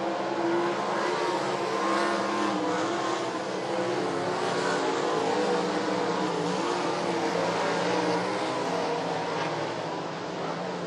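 Several sprint car engines running at once on the track, their pitches rising and falling together as the cars circulate.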